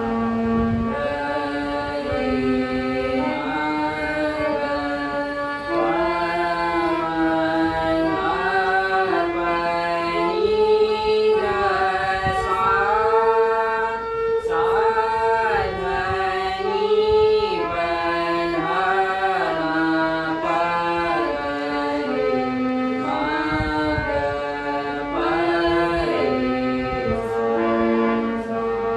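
A voice singing an Indian classical-style melody: held notes that step from pitch to pitch, with frequent sliding ornaments between them.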